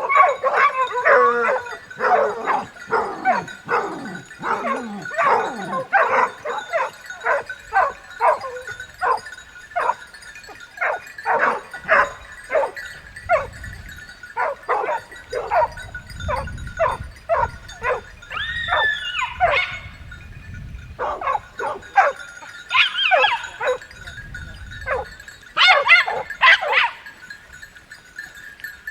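A pack of hunting dogs barking and baying, many voices overlapping in a dense flurry at first, then barking more sparsely, with a few drawn-out howls near the middle and toward the end.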